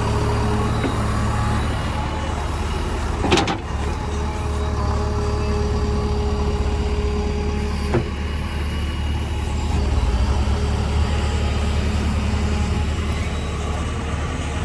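Heavy diesel engine running steadily, with a sharp bang about three seconds in and a smaller knock near eight seconds.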